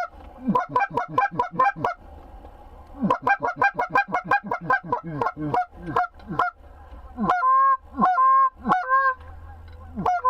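Geese honking: quick runs of short clucks for the first six seconds, then a few longer, drawn-out honks.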